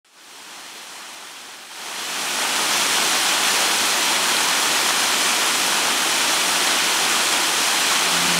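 Mountain waterfall rushing and splashing over rock, a steady hiss of falling water. It fades in from silence and grows louder about two seconds in.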